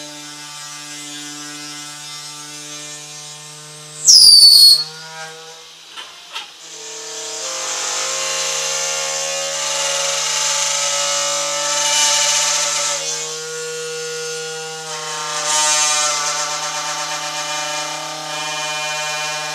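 Drilling machine boring fastener holes in a table: a steady motor whine, a brief very loud squeal that falls in pitch about four seconds in, then two longer stretches of louder hissing cutting noise as the drill works.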